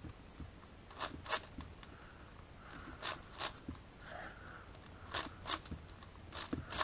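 Layers of a MoFang JiaoShi 7x7 plastic speed cube being turned by hand: soft plastic clicks, mostly in pairs about every two seconds.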